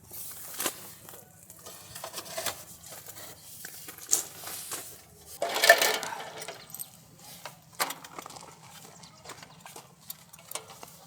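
Light metal clinks, knocks and clatters of parts being handled, with a louder scraping rustle about five and a half seconds in.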